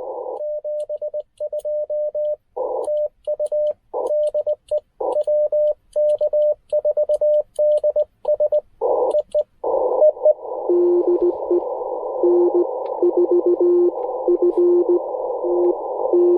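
Morse code (CW) on a Ten-Tec Argonaut V transceiver. For about ten seconds the radio's sidetone keys out a message at a steady mid pitch, going silent between the dots and dashes as the receiver mutes. Then the receiver's narrow-filtered hiss returns, and a weaker station's Morse reply comes through it at a lower pitch.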